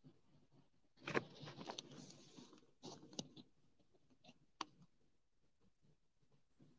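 Near silence, broken by a few faint clicks and a short rustle about a second in, then two more single clicks.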